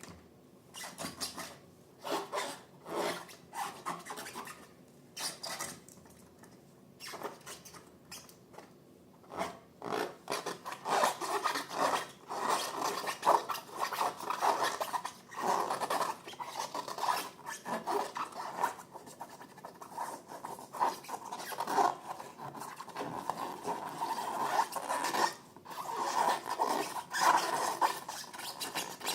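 Hands working balloons and slime: irregular short rubbing and scratching strokes, sparse at first and busier from about ten seconds in.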